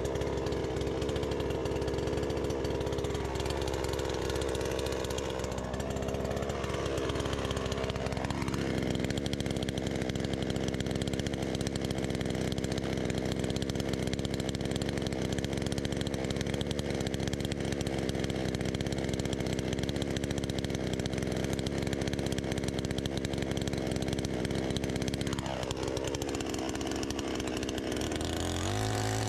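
Gasoline chainsaw engine running: it idles, speeds up about eight seconds in, holds a steady higher pitch for some fifteen seconds, then drops back to idle near the end.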